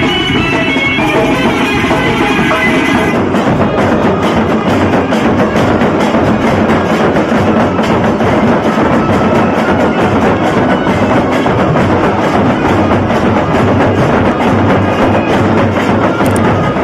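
Drums beaten in a fast, dense, steady rhythm, with a piping wind instrument playing a melody over them for about the first three seconds.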